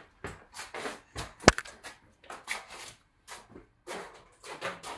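Repeated short rubbing or scraping strokes, uneven, about two a second, with one sharp click about a second and a half in.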